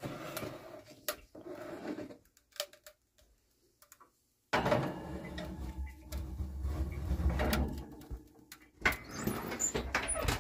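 Clatter and knocks of a baking tray holding a water bath and a caramel mould being set into a kitchen oven. After a short silence, a steady low hum with handling noise starts suddenly about four and a half seconds in, and more knocks come near the end.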